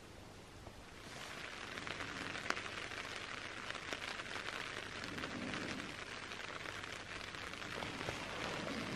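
Light rain pattering on a tarp shelter overhead: an even hiss with scattered drop ticks, swelling about a second in.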